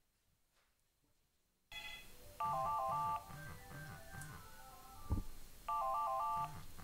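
Mobile phone ringtone, a Siemens handset ringing on a table: it starts suddenly about two seconds in, with two bursts of a fast warbling trill and a melody over a pulsing beat. One dull thump about five seconds in.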